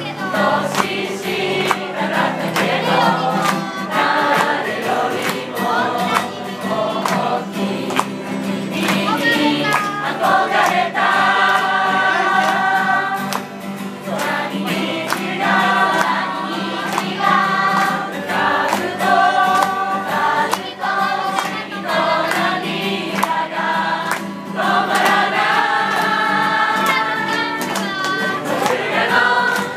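A group singing a camp song together to a strummed acoustic guitar.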